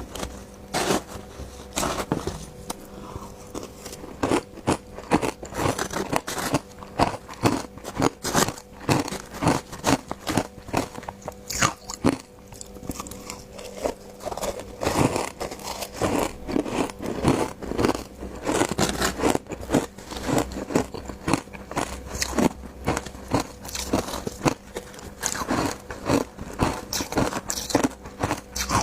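Ice dusted with matcha powder being bitten and chewed close to the microphone: a dense, irregular run of sharp, brittle crunches, several a second, over a faint steady hum.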